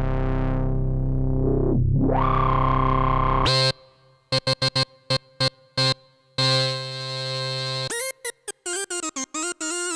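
Behringer Odyssey analog synthesizer playing. A held low, buzzy note has its filter swept closed and back open about two seconds in, then stops abruptly. Short staccato stabs follow, then a held note, then a quick run of notes with wavering, gliding pitch.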